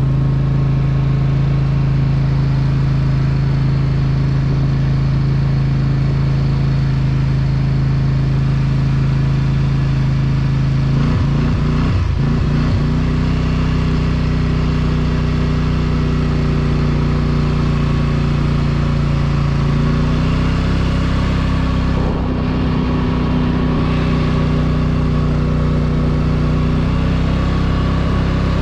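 Polaris Sportsman 850 ATV's parallel-twin engine running steadily at riding speed; its pitch shifts about eleven seconds in and steps up slightly near twenty seconds.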